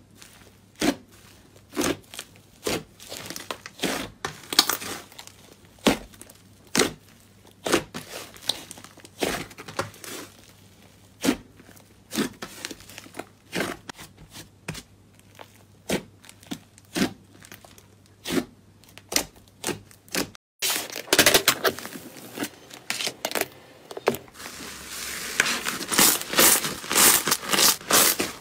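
Hands squishing and pressing thick white slime, making separate wet pops and clicks about once or twice a second. About two-thirds of the way through, the sound switches to a dense, rapid crackling as fluffy pink slime is stretched and pulled apart.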